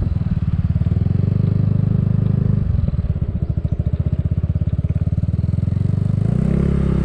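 Motorcycle engine running while riding, a steady pulsing beat that slows and grows uneven about three seconds in, then evens out into a smoother hum near the end.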